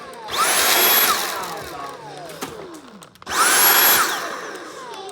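Dyson cordless vacuum motor running off a DeWalt 20V battery through an adapter, starting in short bursts: twice it spins up to a high whine, holds briefly, then winds down with a falling pitch.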